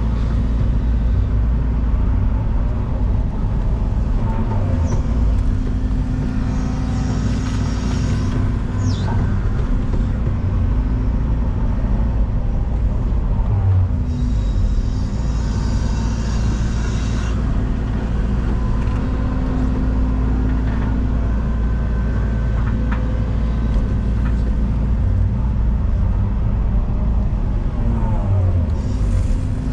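Excavator's diesel engine running steadily while it digs and swings loose stone, with a few brief higher-pitched squeals over the drone.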